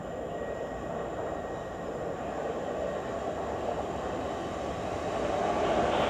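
Train running on the line, its steady noise growing louder as it approaches.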